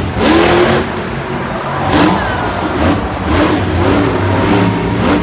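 Earthshaker monster truck's supercharged V8 engine revving up and down in repeated surges.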